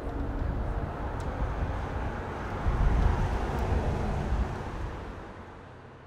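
Outdoor background noise: a low, uneven rumble without any distinct pitch, swelling about three seconds in and then fading out toward the end.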